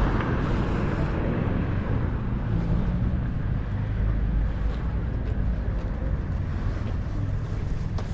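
Outdoor street ambience: a steady low rumble of wind buffeting the microphone, mixed with the hum of road traffic.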